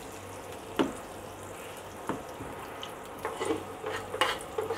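Mustard seeds and green chillies frying in oil in a small tempering (tadka) pan: a steady sizzle with a few sharp pops early on, then crackling that comes more often after about three seconds as the seeds begin to splutter.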